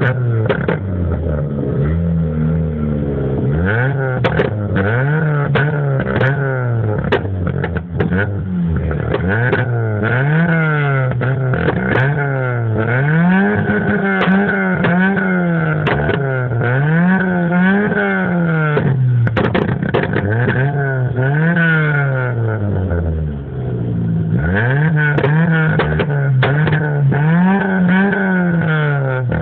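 Vauxhall Corsa 1.2 petrol engine revved over and over through its exhaust, rising and falling about every two seconds, with many sharp crackles throughout. It is being blipped to try to make the exhaust pop and spit flames.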